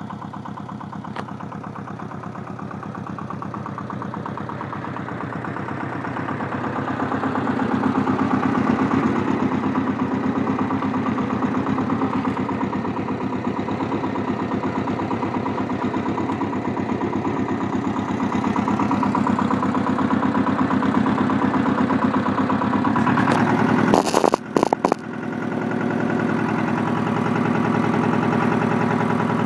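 Goldoni 926 compact tractor's engine running steadily while it drives a rotary tiller, growing louder over the first several seconds. About three-quarters of the way in there are a few sharp knocks and the sound briefly cuts out before the engine comes back.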